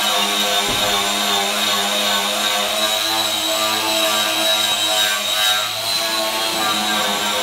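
Grinder running steadily with a high, even whine, with music playing along with it.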